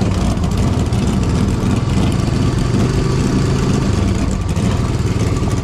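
Dirt late model race car's V8 engine idling and running at low speed, steady and loud.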